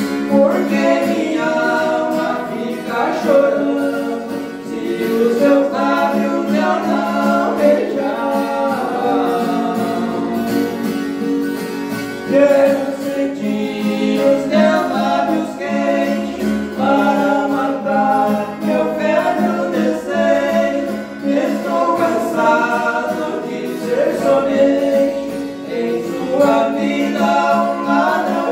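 Two men singing a waltz together in harmony, accompanied by a strummed acoustic guitar.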